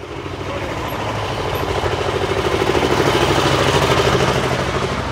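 Engine of a portable drum concrete mixer running with a steady, pulsing hum, growing louder as it is passed close by and easing off near the end.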